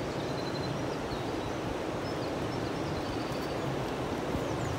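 River water flowing over a shallow, rocky riffle: a steady rushing noise, with a few faint, brief bird chirps above it.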